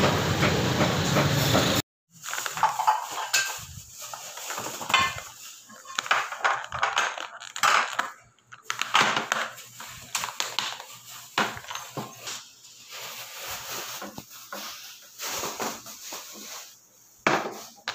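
Steady street and traffic noise that cuts off about two seconds in, followed by irregular clicks, crackles and knocks of clear plastic food containers being handled and a lid pried open on a table.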